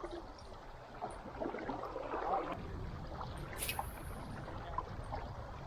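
Water moving around a kayak on a river, with a low rumble setting in about two and a half seconds in and one sharp click a little past the middle.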